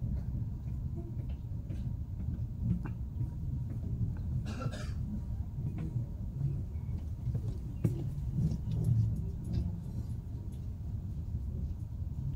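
Low, steady running rumble of a CR200J Fuxing train heard from inside a passenger coach as it rolls along the platform into a station, with scattered light clicks and a brief hiss about four and a half seconds in.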